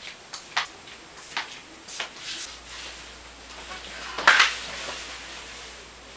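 A few soft footsteps on a hard floor, then a louder rustle of bedding and mattress about four seconds in as a person climbs onto a bed.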